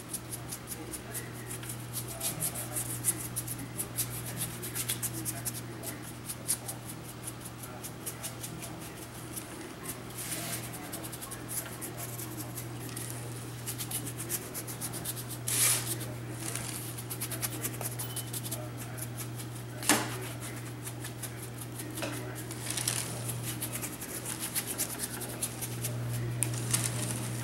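Paintbrush dry-brushing light gray paint over a rough concrete statue: the bristles scrub and scratch across the surface in quick, repeated strokes, with two sharper knocks, over a steady low hum.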